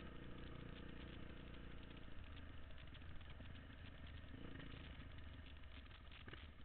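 Dirt bike engine running steadily at low revs, close to idle, with a fine rapid ticking over a low hum.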